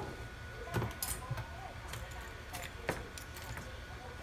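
Scattered light clicks and taps, about six in four seconds, of small tools and smartphone parts being handled during a repair, over a faint steady high hum.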